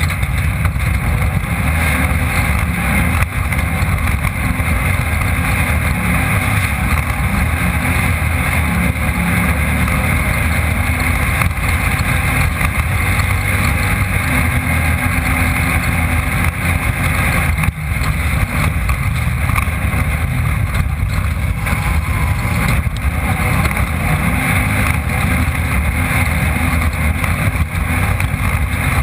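Off-road race car's engine running hard, heard through an onboard camera, with a steady rushing noise over it. There is a brief drop in level about two-thirds of the way through.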